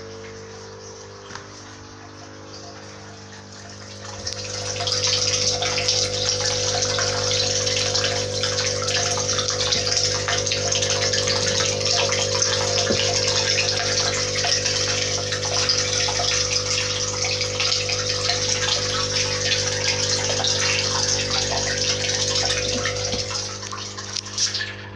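Water churning and splashing in a 1000-litre plastic fish-rearing tank, over a steady electric pump hum. The water noise gets much louder about four seconds in and eases off near the end.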